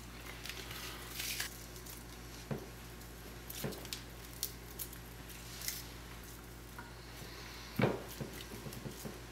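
Sliced raw onion rings dropped and spread by hand over marinated meat in a glass baking dish: faint soft squishes and light taps, with one louder knock near the end.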